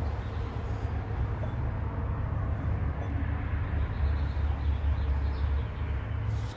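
Steady low rumble with a faint hiss.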